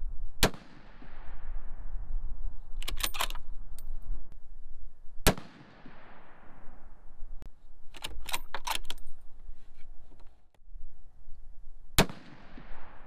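Three shots from a Tikka T3X Varmint bolt-action rifle, about five and seven seconds apart, each report trailing off over a second or two. Between the shots comes a quick run of metallic clicks as the bolt is worked to chamber the next round.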